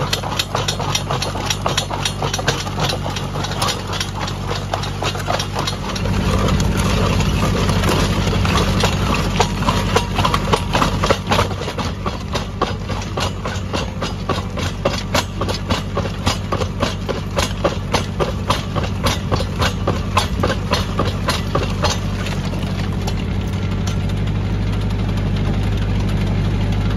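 Tractor engine driving a PTO post-hole auger boring into rocky ground. The engine runs steadily and grows louder about six seconds in, with a rapid, uneven clatter of knocks as the bit grinds through and shatters rocks.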